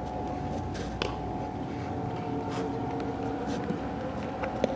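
Baseball-practice field ambience: a steady low hum with two sharp knocks, one about a second in and one near the end, the kind made by a ball being hit or slapping into a glove.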